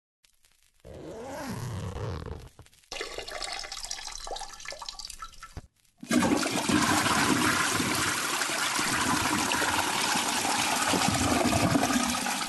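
Rushing, gurgling water in three parts: a short burst about a second in, a second stretch from about three seconds, then a louder, steady rush from about six seconds on.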